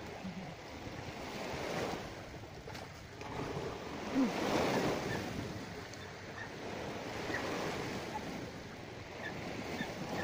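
Sea waves washing in, the surf swelling and easing every few seconds, with some wind on the microphone.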